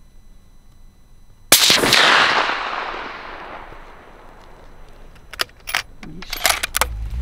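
A single gunshot about one and a half seconds in, its report rolling away and fading over about two seconds. Several sharp clicks and knocks follow near the end.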